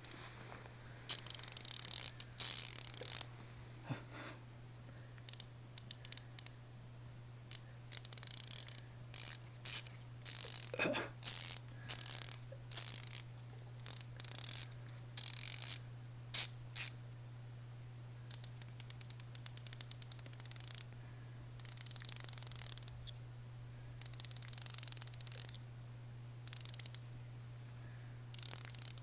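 Small ratchet wrench clicking in repeated bursts of rapid clicks, with short pauses between, over a steady low hum.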